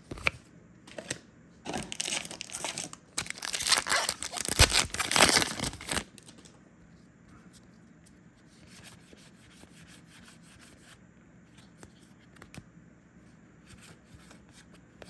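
A foil trading-card booster pack wrapper being torn open and crinkled for a few seconds, then a few faint light ticks.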